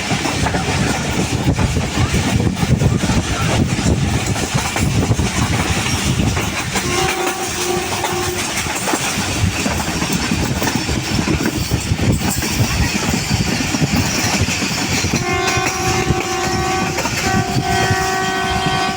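Passenger train running on the rails with a steady low rumble, and the locomotive's horn sounding: two short blasts about seven seconds in, then two longer blasts near the end.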